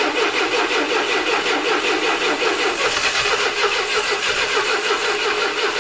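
The Roadog's long-dormant engine being turned over by its starter in a first attempt to get it running, with starting fluid sprayed into the intake. The cranking is steady and even and starts suddenly, and the engine does not catch.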